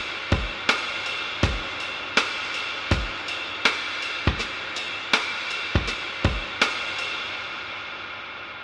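Instrumental hip-hop beat: a drum kit (kick, snare and cymbals) hitting about every three-quarters of a second over a sustained chord. The drums stop about two-thirds of the way through and the chord fades.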